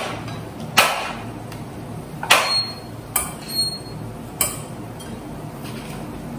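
Metal cooking utensils clinking and knocking against stainless steel pans as food is stirred on the hob: about five sharp, irregularly spaced clinks.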